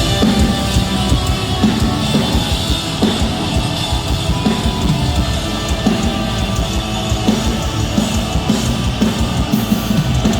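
Live heavy rock band playing an instrumental passage: distorted electric guitars, bass and a fast, driving drum kit with dense kick drum hits, without vocals.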